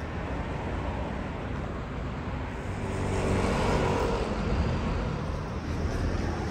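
City street traffic, with a motor vehicle passing close and loudest about three to four seconds in.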